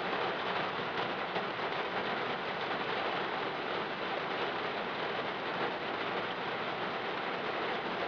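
Steady rain falling on a car, heard from inside the car as an even hiss.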